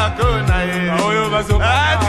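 Background music: a song with a sung voice over a bass line and a regular drum beat.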